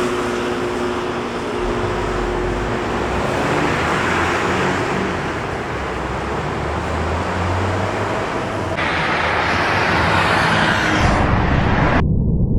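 Road traffic: vehicles going by, a steady rush of tyre and engine noise. The sound changes abruptly about nine seconds in, and near the end it cuts to a low, muffled rumble.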